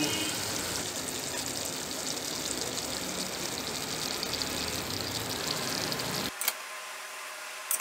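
Paneer curry simmering in the pan, a steady bubbling hiss. It drops away abruptly about six seconds in, leaving a fainter hiss with a couple of small clicks.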